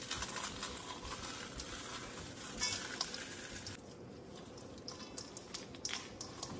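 Saltine-style crackers crushed by hand and crumbling into a stainless steel mixing bowl, a dense crackly rustle full of small crunches. About four seconds in it drops to a quieter sound of hands mixing the crab stuffing in the bowl, with scattered small clicks.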